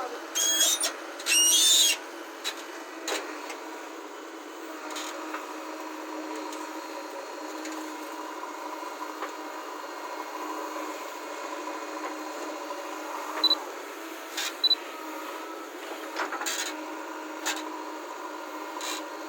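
Construction machinery running with a steady drone. Two loud short bursts come in the first two seconds, and a few sharp knocks come in the second half.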